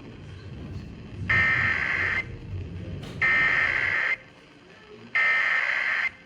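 Emergency Alert System SAME header data bursts over broadcast radio: three buzzy digital tone bursts, each just under a second long, about a second apart.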